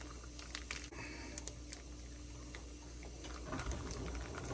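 Faint crinkling and small clicks of a plastic freezer zipper bag of tomato paste being pressed to squeeze the air out. The rustling grows a little busier near the end.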